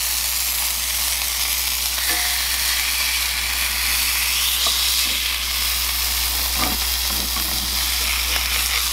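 Two ground-beef patties sizzling in hot oil in a cast iron skillet: a steady frying hiss with a few faint clicks.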